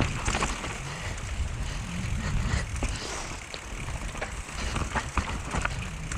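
Mountain bike riding down a rooty dirt trail: tyres rolling and skidding over roots, with the bike rattling and knocking over the bumps.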